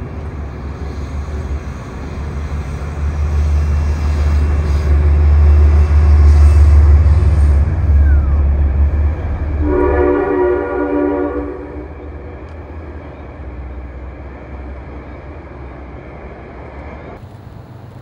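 Train passing close with a heavy low rumble that swells to a peak and then fades. Its horn sounds a chord once, for a little under two seconds, about ten seconds in.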